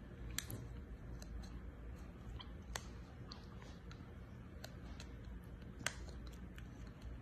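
A metal spoon scraping and tapping inside a small plastic jelly cup, giving a few sharp, separate clicks over a low steady background hum.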